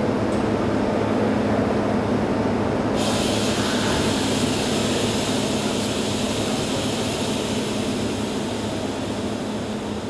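CNC machining centre running: a steady mechanical drone, joined about three seconds in by a sudden, continuing hiss.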